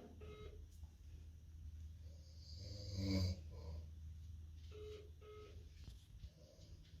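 A sleeping man snoring: one long, rattling snore that builds to a peak about three seconds in, over a steady low hum. Two pairs of short electronic beeps sound, one at the start and one about five seconds in.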